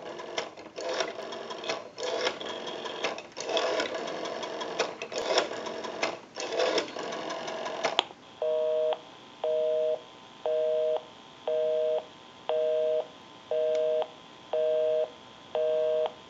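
Stromberg-Carlson 554 rotary wall telephone being dialed: clicking and rattling of the rotary dial for about eight seconds. Then a North American busy signal starts, a two-tone beep repeating about once a second, because the number dialed is engaged.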